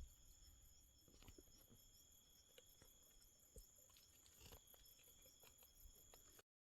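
Near silence with faint, irregular small clicks over a steady high hum. The sound cuts off abruptly near the end.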